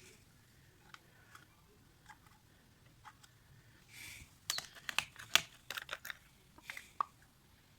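A quick run of light clicks and clatters from small hard objects being handled, starting about four and a half seconds in and ending around seven seconds, after a few faint ticks.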